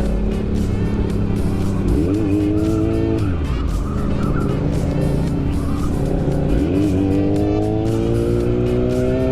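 Motorcycle engine under way, its pitch rising about two seconds in, dropping off a little after three seconds as the throttle closes or it shifts, then climbing steadily again from about six and a half seconds as it accelerates.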